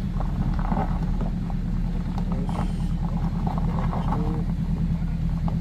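Heavy truck's diesel engine running steadily, its pitch holding level without revving.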